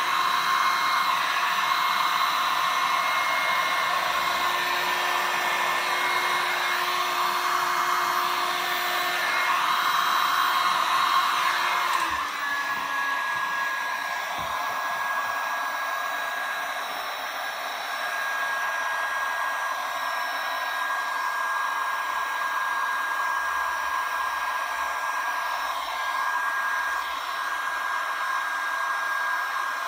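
Electric heat gun blowing steadily, a continuous rush of air with a faint motor whine, as it heats and pushes wet paint and resin across a glass panel. Its tone shifts slightly and it gets a little quieter about twelve seconds in.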